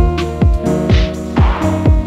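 Background electronic music with a steady drum beat, about two kicks a second, over held synth tones.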